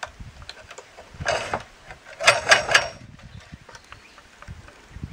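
Thin frame wire being threaded and pulled through the holes of a wooden beehive frame: two short scraping pulls, about a second in and about two seconds in, the second louder, among light clicks and ticks of the wire against the wood.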